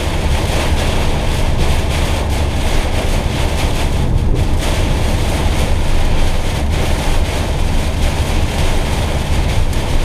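Heavy rain lashing the windscreen and body of a Citroën Jumper van in a thunderstorm, loud and steady, over a deep cabin rumble of engine and tyres.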